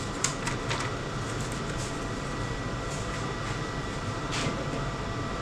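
Steady mechanical hum, like a ventilation unit or running machine. A few light paper crinkles in the first second as a sheet is folded, and one more paper rustle a little past four seconds in.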